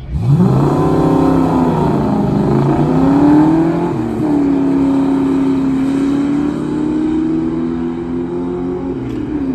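1985 Ford Mustang's small-block Ford 5.0 V8 launching hard off a drag-strip start line and accelerating away. The revs climb sharply, then drop back twice as it shifts gears, then hold a long, slowly rising tone.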